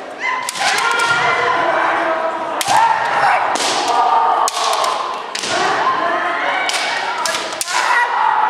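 Kendo sparring: bamboo shinai striking and clacking together and feet stamping on a wooden gym floor, in sharp irregular hits. Long drawn-out kiai shouts ring out between and over the hits, echoing in the hall.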